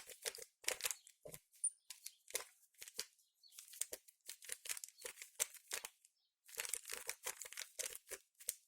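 A 3x3 Rubik's cube being scrambled by hand: rapid turns of its plastic layers give quick, irregular clicks and clacks, with a short pause about six seconds in.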